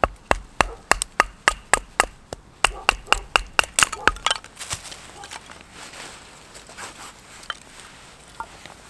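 Wooden baton striking the spine of a fixed-blade knife to split a thin stick (batoning): a fast run of sharp wooden knocks, about four a second, for roughly four seconds, then a few softer handling sounds.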